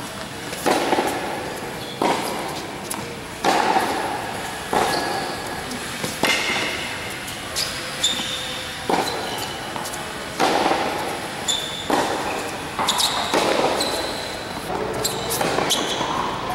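Tennis ball being struck back and forth by racquets and bouncing on a hard court in a groundstroke rally, a sharp pop about every second and a half, each echoing under a large covered roof.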